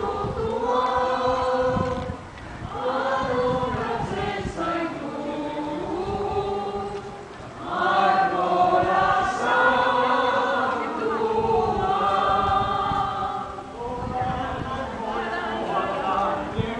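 A group of people singing together in chorus, in several long sung phrases with brief pauses between them.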